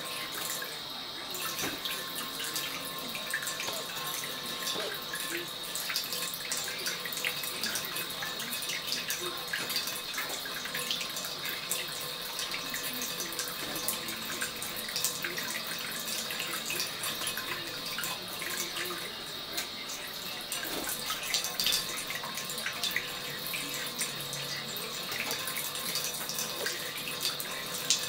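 Thin stream of tap water splashing steadily onto a plate in a stainless steel sink, with many small drips and splashes.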